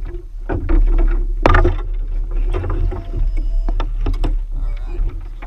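Small sailing pram being paddled: the wooden paddle knocks against the hull several times, the sharpest about one and a half seconds in, over a steady low rumble of wind on the boat-mounted microphone.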